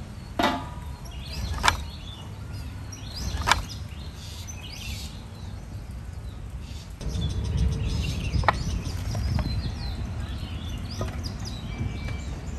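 Outdoor ambience: small birds chirping, with a few sharp knocks scattered through. About seven seconds in, a low rumbling noise comes in and continues.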